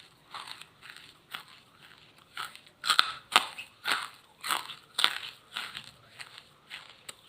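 A person biting and chewing charcoal: a run of crunches, roughly two a second, loudest in the middle.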